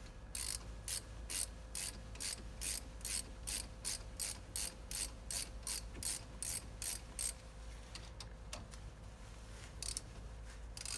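Ratchet socket wrench clicking in steady back-and-forth strokes, about two and a half a second, as it runs a brake caliper slider pin bolt in. The strokes stop about seven seconds in, and two or three more come near the end.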